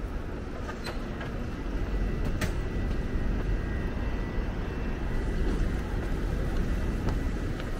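Steady low rumble of city street traffic, with a couple of brief sharp clicks.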